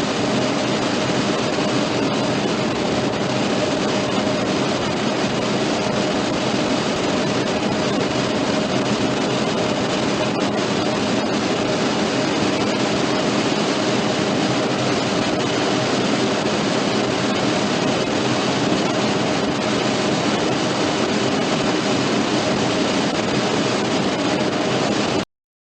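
Cockpit voice recorder audio from a Boeing 757 cockpit: a steady buzz with a constant tone over cockpit background noise, which cuts off abruptly near the end.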